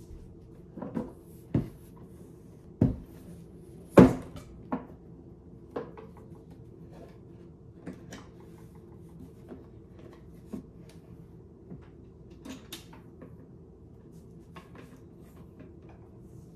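Knocks and thumps of a Symphonic portable turntable case being handled and set down on a wooden table, the loudest about four seconds in, followed by lighter clicks and taps as the case is unlatched and its lid opened. A steady low hum runs underneath.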